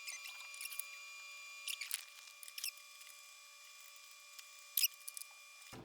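Faint, scattered light clicks and taps of plastic PC case fans and parts being handled and fitted, with a steady faint hum of fixed tones underneath. The clearest clicks come about two seconds in and near the end.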